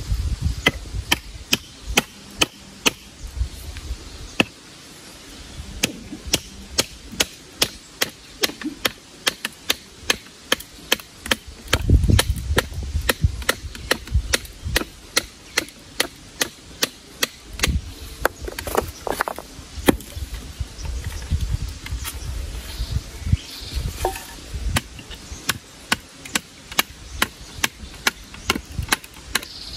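Wood being chopped by hand, a steady run of sharp blows at about two a second, as firewood is cut up for a cooking fire.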